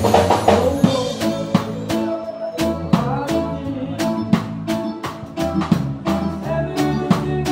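Live band playing upbeat music: electronic keyboard and bass over a drum kit keeping a steady beat.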